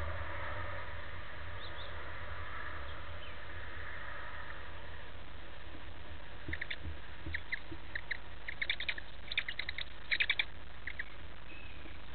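Tawny owl chicks: a faint wheezy hiss at first, then a run of short, high chirps that come faster and louder in the second half. A steady low hum runs underneath.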